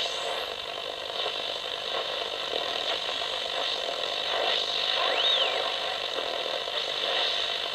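Homebrew shortwave receiver hissing with static as its tuning knob is swept between stations, faint whistling tones gliding in pitch through the noise, one rising sharply about five seconds in.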